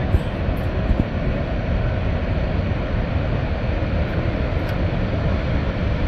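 Steady rushing roar of Niagara Falls' falling water, mixed with wind on the microphone.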